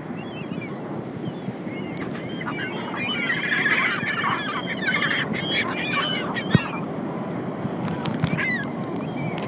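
A flock of seagulls calling over one another while being fed bread, short squawking calls piling up thickest from about three to six seconds in, then thinning out.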